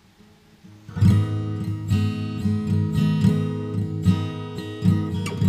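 Background music on acoustic guitar: strummed chords coming in about a second in and going on at a steady pace.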